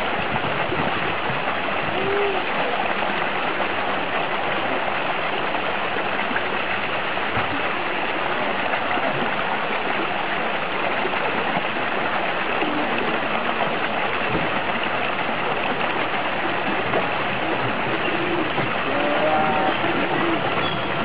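A steady stream of water pouring and splashing into a pool, churned by a young seal swimming and rolling under the falling water.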